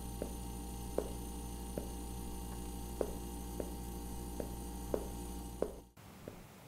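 Steady electrical mains hum with footsteps on a hard floor, a sharp step about every three-quarters of a second. The hum cuts off suddenly near the end, leaving a quieter background.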